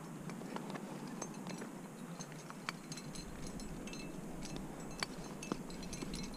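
Metal climbing gear racked on a harness, carabiners and cams, clinking lightly as the climber moves: many small scattered clicks and chinks, some with a brief ring, over a faint steady hiss.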